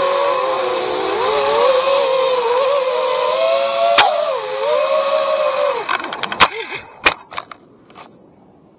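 FPV drone's electric motors and propellers whining, the pitch wavering with the throttle. About four seconds in there is a sharp crack as the drone hits the pavement. Around six seconds in the motors wind down in pitch and stop, followed by several knocks as it tumbles, the last of them near the end.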